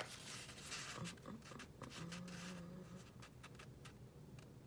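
Soft rustling and rubbing of paper as a paper piece is pressed and tucked into a book page by hand, with scattered light ticks and one sharp tap at the very start.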